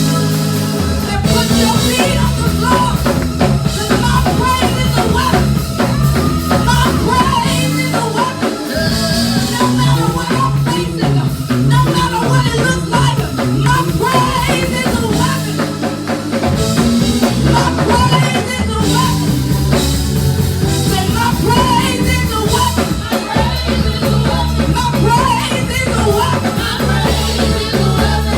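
Upbeat church worship music: a band with drums and bass playing under singing.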